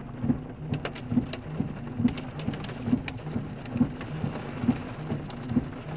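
Rain and hail striking a car's roof and windows, heard from inside the car as a steady patter with scattered sharp ticks. Underneath runs a low hum that pulses evenly about twice a second.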